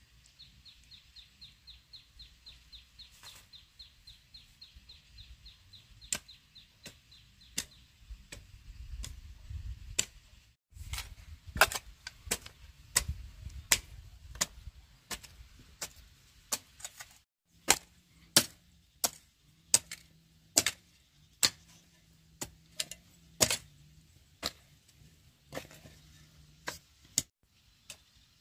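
Metal hoe blade chopping into dry, stony soil: repeated sharp strikes, steadiest near the end at a little more than one a second. A fast run of high chirps, about five a second, goes on for the first seven or eight seconds and then stops.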